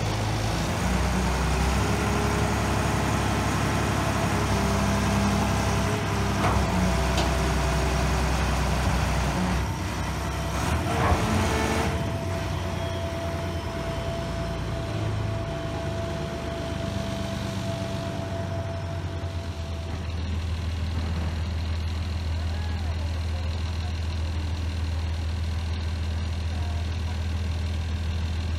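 Engine of a boat travel lift running steadily while it carries and lowers a sailboat in its slings. A thin steady whine joins partway through, and the engine note drops a little about halfway.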